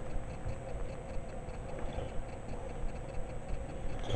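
Faint, quick, even ticking over soft handling sounds as hands lay pear slices into a glass bowl.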